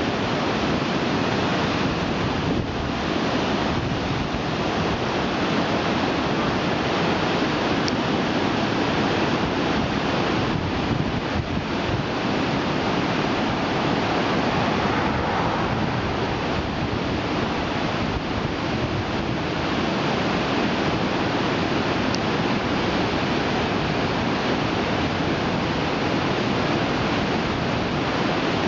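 Whitewater rapids rushing over and between boulders in a steady, loud, unbroken wash of water noise.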